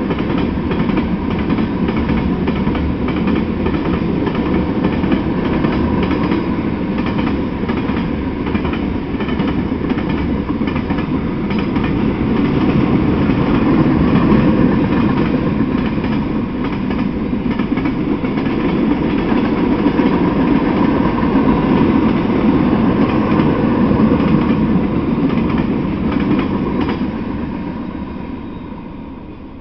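Freight cars rolling past on the rails: a steady, loud rumble of wheels and running gear from a mixed train of tank cars, covered hoppers and boxcars. The sound fades away over the last couple of seconds as the final car goes by.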